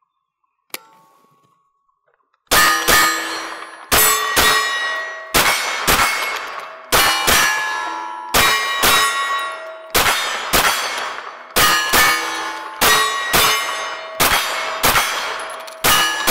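A 9mm Smith & Wesson M&P FPC carbine fires quick pairs of shots, about ten pairs roughly a second and a half apart. Each shot is followed by the ringing clang of steel targets being hit.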